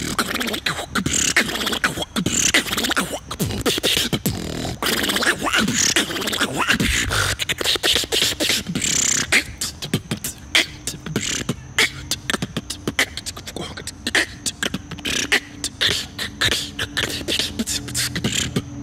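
Beatboxing: a fast, dense run of mouth-made kick, snare and hi-hat sounds. About halfway through, low held bass notes come in under the percussion.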